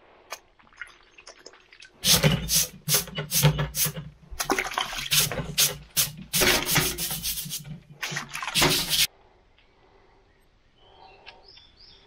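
Water splashing and sloshing as a wet sponge is worked in a bucket and wiped over fireclay bricks. It comes as a run of irregular wet bursts starting about two seconds in and stopping about two-thirds of the way through.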